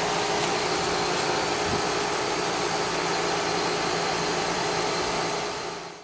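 Rheem RANL049JAZ 4-ton, 13 SEER air-conditioner condensing unit running steadily: the condenser fan's airflow with a steady compressor hum under it, nice and quiet, charged to about 10 degrees subcooling. The sound fades out at the very end.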